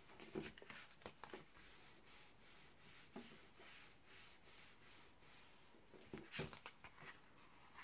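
Faint rubbing and brushing of hands over folded card stock as a glued card is pressed closed, with a few soft paper rustles, the clearest about six seconds in; otherwise near silence.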